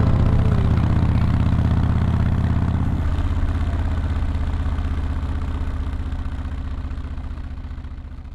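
Harley-Davidson Dyna Wide Glide (FXDWG) V-twin engine running with a rapid, even pulse. Its note shifts about three seconds in, and the sound gradually fades out.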